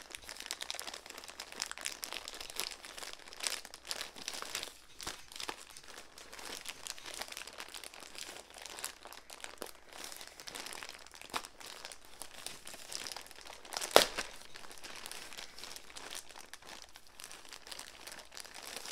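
Plastic mailer bag being crinkled and torn open by hand: a continuous crackling rustle of thin plastic with small pops, and one sharp loud snap about three-quarters of the way through.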